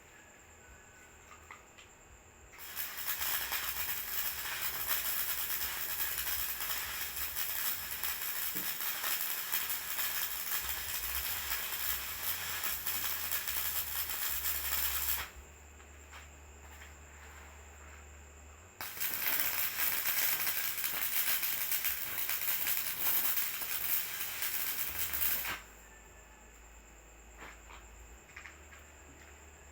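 Electric arc welding of teeth onto a corn sheller: a dense, steady crackle for about twelve seconds, a pause of a few seconds, then a second crackling run of about seven seconds.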